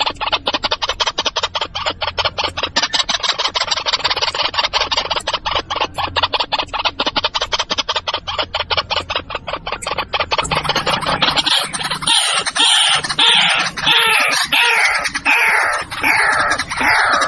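White-breasted waterhen calling: a rapid run of short, harsh, clucking notes, turning about ten seconds in into louder repeated notes that each fall in pitch.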